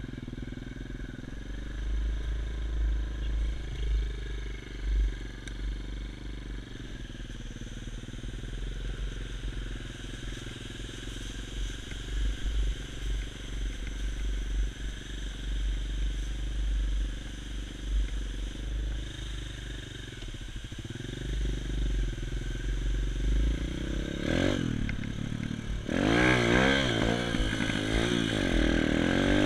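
Xmotos XB33 pit bike's 140 cc single-cylinder four-stroke engine running as the bike is ridden over rough ground, at a fairly steady pitch for most of the time. Near the end it gets louder, the revs rising and falling again and again as the throttle is worked.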